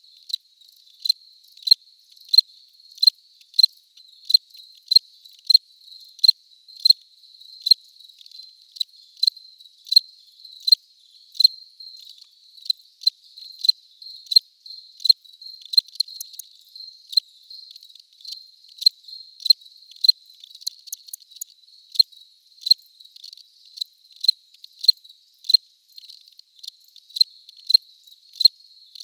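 A cricket chirping in short, even, high-pitched chirps, about one and a half a second, with fainter chirps between them.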